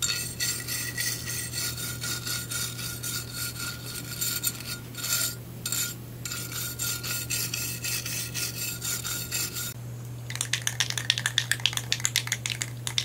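A wire brush scrubbing back and forth over a metal exhaust pipe to clean its surface, with a faint metallic ring. The strokes pause briefly about five seconds in and stop near ten seconds. A fast run of sharp rattling clicks follows.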